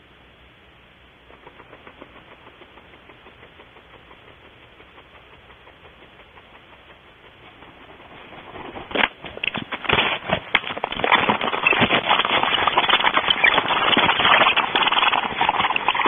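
Barn owl moving about in its nest cavity, scratching and rustling on the nest debris close to the microphone. There are faint, evenly spaced soft ticks at first, then from about halfway a loud, dense run of scratches and rustles.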